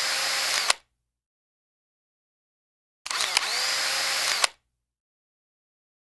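Sound effect of a camera shutter with a motorised film wind, a whirring burst that ends just under a second in and then plays again identically at about three seconds for a second and a half, with dead silence between.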